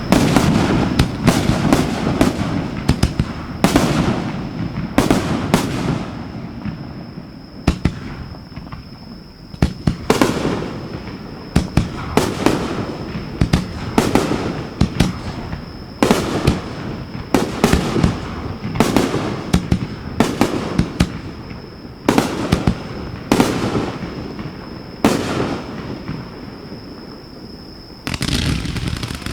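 Aerial fireworks shells launched from mortar tubes close by and bursting in rapid succession: sharp bangs come every second or two over a continuous crackle and rumble.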